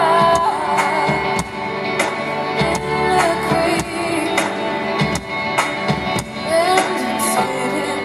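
Live pop music from a concert: a woman singing over a band, with a steady percussive beat.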